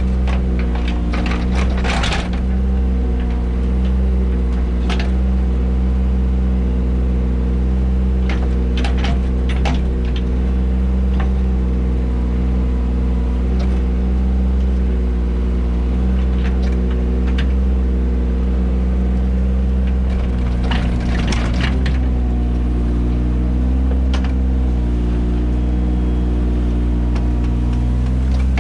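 Mini excavator's diesel engine running steadily, with scattered knocks and clanks a few times as it digs.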